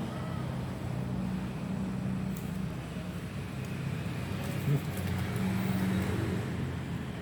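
A steady low engine-like hum runs throughout, with a short knock about five seconds in.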